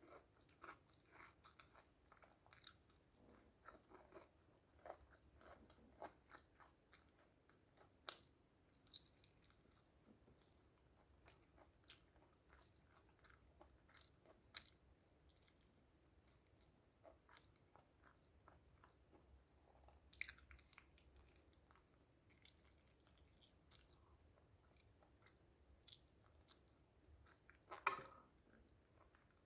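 Faint, close mouth sounds of someone eating fried chicken and rice: irregular chewing and biting with many small wet clicks and smacks, and a few sharper clicks, one about eight seconds in and one near the end.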